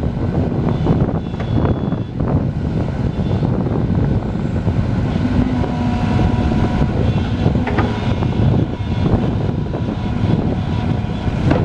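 Excavator's diesel engine running hard under hydraulic load as the boom and bucket work, with a brief steady hydraulic whine around the middle and a few sharp metal knocks.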